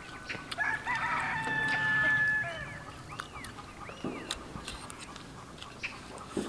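A rooster crows once, a long call starting about half a second in and lasting about two seconds, followed by a few short arching bird calls. Faint clicks run underneath.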